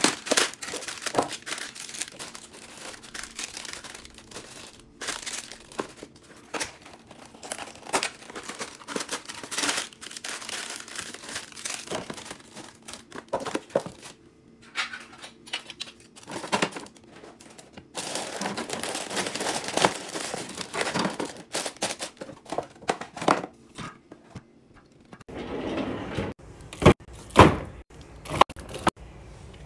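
Crinkly plastic snack bags rustling as they are handled and packed into a drawer, with small clicks and taps among them. Near the end, a few sharp knocks as small boxed drink cartons are set down in a fridge.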